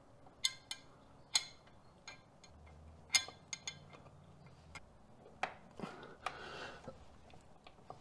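Light, irregular metallic clicks and taps as a bolt is threaded by hand into an aluminium park-brake cable clip under a car, with a soft rustle of handling about two-thirds of the way through.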